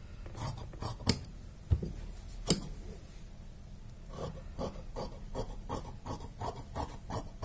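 Large tailoring shears cutting through blouse fabric on a table: a series of sharp snips, spaced out at first and coming faster in the second half.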